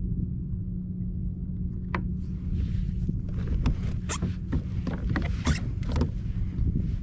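Steady low rumble of wind and water on a kayak, with a run of short, irregular scrapes and clicks from about two seconds in until near the end.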